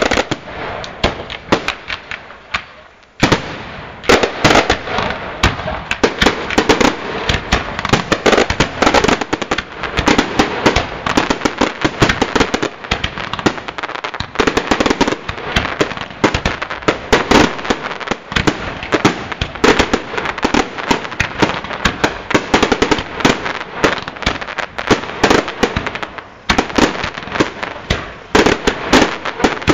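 Aerial fireworks display: a rapid, almost unbroken barrage of bangs and crackles, with a short lull about three seconds in.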